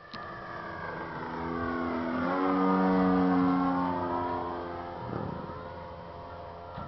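Radio-controlled aerobatic model airplane flying past. Its engine note swells to a peak about three seconds in and then fades, the pitch sliding down as it passes.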